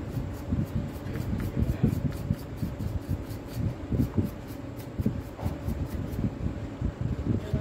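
Paintbrush bristles scrubbing dust out of the opened plastic housing and trigger switch of a Makita DDF446 cordless drill-driver, in quick, irregular strokes, over a faint steady hum.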